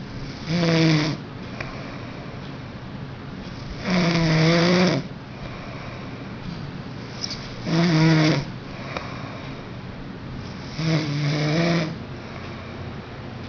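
A sleeping man snoring: four loud, pitched snores about three and a half seconds apart, each lasting about a second.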